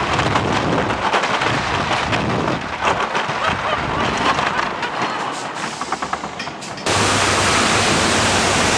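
Avalanche wooden roller coaster train rattling and rumbling over the wooden track with many sharp clacks, easing off as it heads into the station shed. About seven seconds in it cuts suddenly to a steady rush of falling water from a waterfall.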